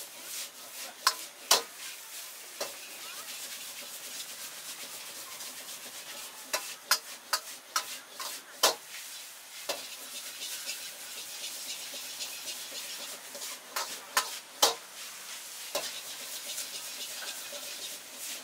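Noodles sizzling in a wok over a high gas flame, with a metal ladle scraping and striking the wok in sharp, irregular clacks as they are stir-fried.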